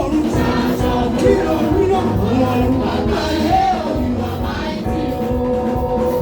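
Loud gospel praise music with group singing over a continuous band accompaniment, held chords and a steady low beat.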